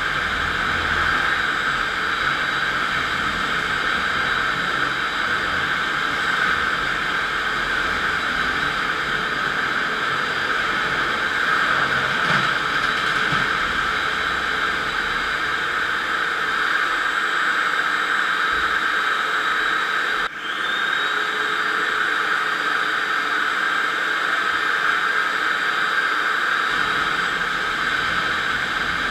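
FastPrep electric floor grinder running steadily with 16-grit single-rhombus diamond grinding plates cutting into a concrete floor, a continuous hissing grind. It drops out for an instant about twenty seconds in, then carries on.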